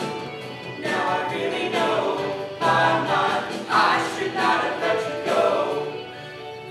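A small group of voices singing together, a woman's voice among them, with little or no instrumental backing.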